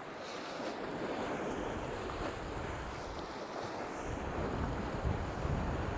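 Sea surf washing against shoreline rocks, with wind buffeting the microphone, the buffeting heavier from about four seconds in.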